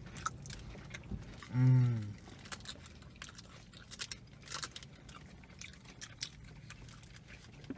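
Chewing and small clicky mouth sounds of people eating a burrito and tacos, with a short hummed "mmm" of enjoyment about a second and a half in.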